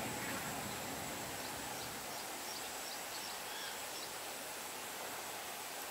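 Outdoor ambience: a steady, even hiss with a few faint, short high bird chirps scattered through the middle and a thin steady high tone underneath.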